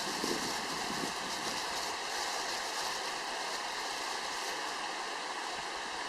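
Mountain stream running steadily over rocks, an even rushing of water.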